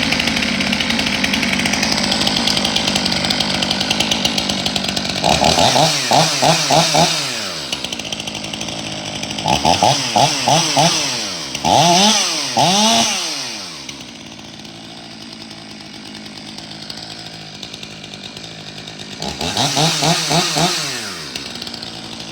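Stihl MS 500i fuel-injected two-stroke chainsaw running at idle and revved in four bursts of quick throttle blips, its pitch rising and falling each time, then dropping back to a lower idle between them. The saw, brought in for shutting off at random, keeps running here.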